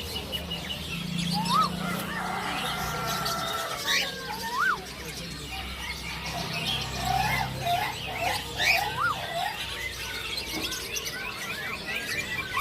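Many birds chirping and calling at once, with repeated short rising whistles among the chatter.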